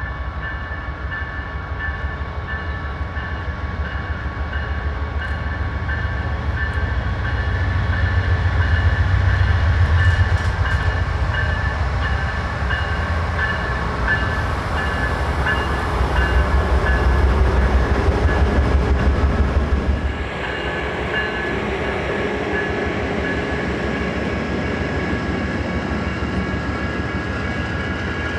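Diesel-electric passenger locomotives, a Siemens ALC-42 Charger and a GE P42DC, pulling away and passing close by with a heavy engine rumble that swells twice as each unit goes by. Railcars then roll past on the rails. A bell rings steadily throughout, typical of a grade-crossing bell.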